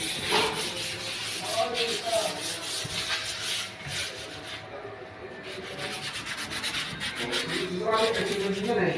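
Irregular rubbing and scratching noise, with faint talk in the background.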